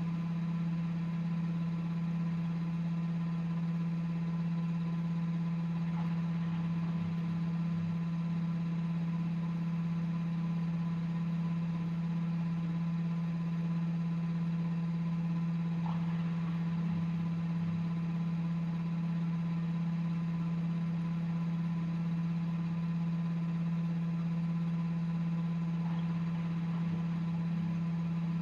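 Front-loading washing machine humming steadily, with three faint ticks about ten seconds apart.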